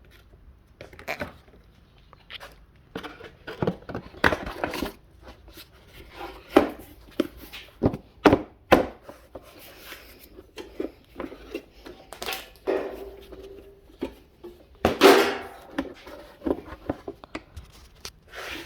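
Irregular knocks, clicks and scraping as an air compressor's cover is handled and fitted back into place.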